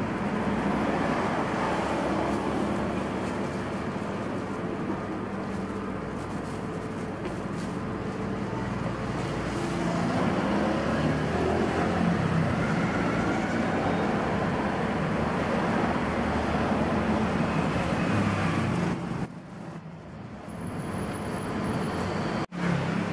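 Steady background noise of street traffic, dropping away briefly twice near the end.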